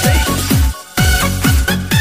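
Electronic dance music with a steady kick drum about twice a second and sustained synth notes, dropping out for a moment just under a second in before the beat comes back.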